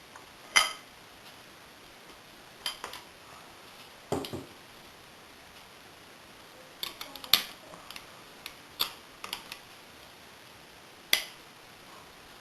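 Sharp metal clicks and knocks of an 1890 Greener double-barrelled shotgun's parts being handled and fitted back together, at irregular intervals, with a quick cluster of clicks about seven seconds in.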